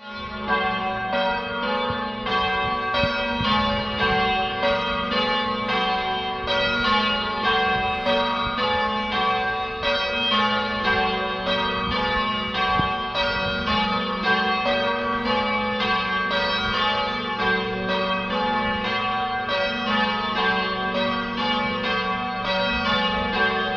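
A ring of three church bells, cast and hung by Taylors of Loughborough in 1925, rung full circle in change ringing. The strikes follow one another in a steady, even rhythm, each bell ringing on under the next.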